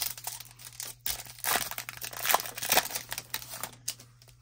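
Trading-card pack wrapper crinkling and being torn open, in a dense run of sharp crackles that is loudest in the middle.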